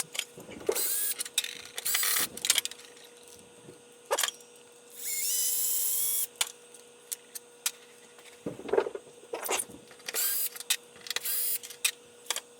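Sped-up sound of a cordless power screwdriver backing screws out of a pinball playfield: several short whirring runs, one longer run about halfway through, with sharp clicks and knocks of screws and parts in between.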